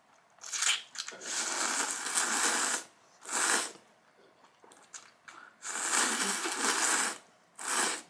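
Spicy Jin ramen noodles being slurped from the pot, several long noisy slurps with short pauses between them.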